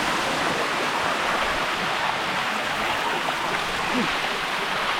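Waterfall water rushing steadily over rock cascades, a close, even rush of noise.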